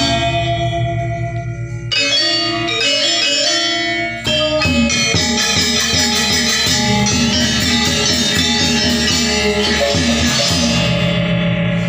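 Balinese gamelan gong ensemble playing: bronze-keyed metallophones ringing together over a two-headed kendang drum. The music dips briefly and comes back in with strong strokes about two and four seconds in, and near the end the bright upper ringing thins out while lower tones sustain.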